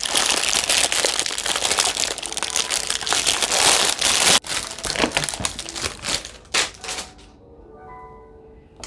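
Plastic packaging wrap crinkling loudly as it is pulled and torn off a set of circular silicone resin molds. It thins into a few separate crackles and stops about seven seconds in.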